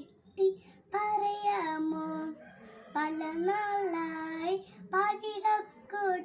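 A young girl singing a Malayalam song, phrase after phrase of long held notes, after a near-silent first second and with a short dip between phrases about two and a half seconds in.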